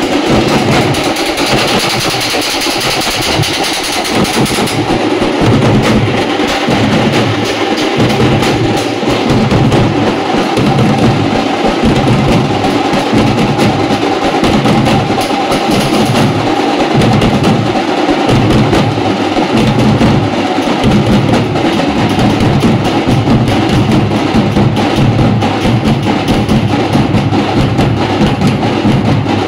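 A troupe of drummers beating many large metal-shelled drums with sticks together, playing a loud, dense, driving rhythm.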